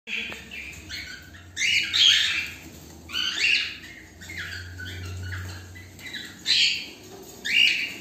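Cockatiels in a nest box giving harsh, hissy calls in short bursts, about one a second.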